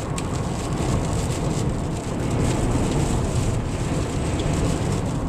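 Steady road and engine rumble of a moving car heard from inside the cabin, with rain and wind on the car and scattered faint ticks.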